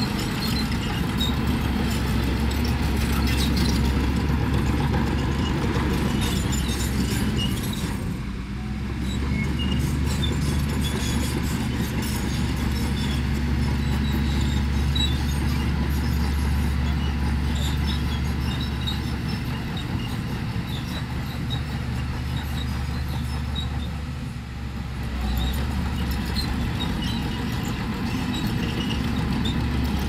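Heavy diesel engine of a crawler bulldozer running steadily under load, easing off briefly twice, with scattered light metallic clinks.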